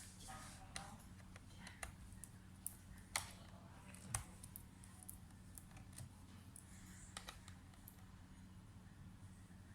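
Scattered faint clicks and taps from handling small parts of a laptop under repair, with two sharper clicks about three and four seconds in, over a steady low electrical hum.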